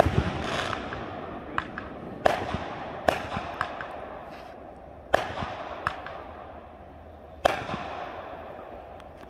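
Aerial fireworks going off overhead: a loud bang right at the start, then four more booms over the next seven and a half seconds, with smaller cracks between them. Each bang trails off in a long fading echo.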